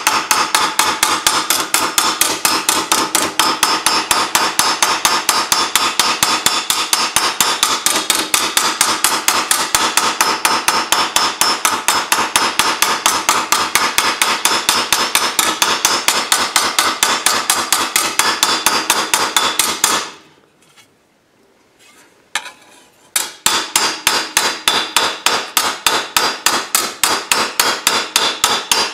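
Body hammer rapidly tapping sheet steel, about five blows a second with a metallic ring, bending and stretching a patch panel down into shape. The tapping stops about twenty seconds in, leaving a couple of single knocks, then resumes in another fast run.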